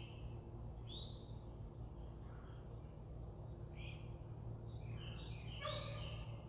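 Wild songbirds chirping in short phrases, busiest near the end, over a steady low hum.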